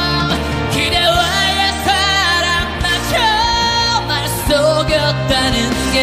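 A Korean ballad: a male voice sings long, wavering held notes over band accompaniment.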